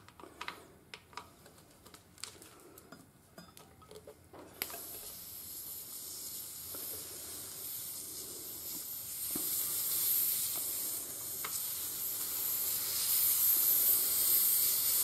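A few small metal clicks from the valve-core tool working on the tyre valve. Then, about a third of the way in, air starts hissing out of the Honda Africa Twin's rear tyre and grows steadily louder as the loosened valve core deflates it.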